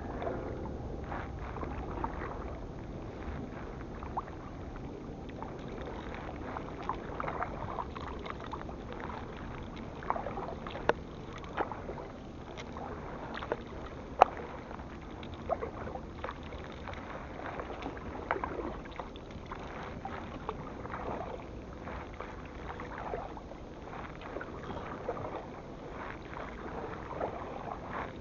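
Canoe being paddled on the sea: a steady wash of water moving along the hull, with scattered short clicks and knocks, the loudest about halfway through.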